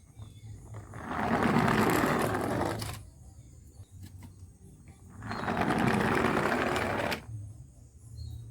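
Toy cars rolling down a ramp, twice: two runs of rolling noise, each about two seconds long, starting about a second in and again past the middle. The second run cuts off abruptly.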